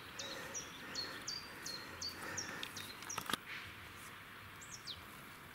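A small songbird singing: a run of short, high, thin notes that each fall in pitch, about three a second, then one longer falling note near the end. Two short clicks about three seconds in.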